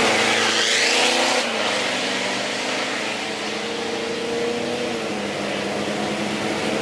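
Car engine running hard at a drag race, accelerating, loud for the first second and a half and then a little quieter as it carries on.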